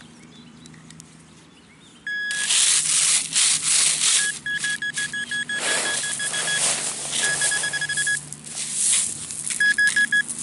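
Rough scraping and rubbing in soil and grass, with a high electronic beep that comes on about two seconds in and then pulses quickly in several runs: a metal detecting pinpointer sounding as it is worked through the dug plug to locate the target.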